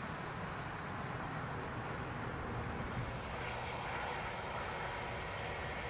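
Twin-engine jet airliner on the runway at takeoff power, its engines making a steady rush of noise.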